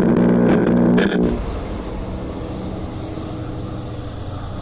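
A loud crackling, buzzing burst for about the first second, giving way to a steady low engine rumble.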